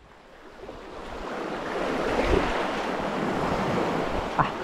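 Surf on the beach: a wave breaking and washing in, swelling over about two seconds and then slowly fading.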